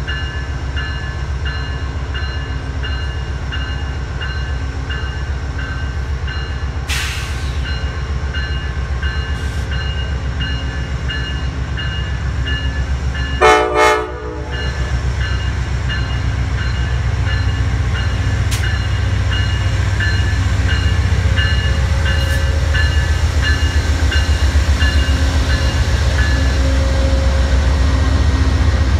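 Amtrak Pacific Surfliner passenger train moving slowly past, its diesel locomotive running with a low, evenly pulsing rumble and a bell ringing repeatedly. One short horn blast comes about halfway through, and the rumble grows a little louder near the end as the cars come alongside.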